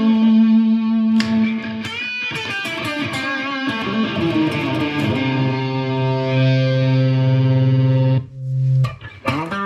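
Electric Stratocaster played through a Fender Mustang GTX100 modelling amp on its Bassbreaker delay preset, with some drive and echo. A run of picked notes leads into a long held note that stops abruptly about eight seconds in, and the playing picks up again near the end.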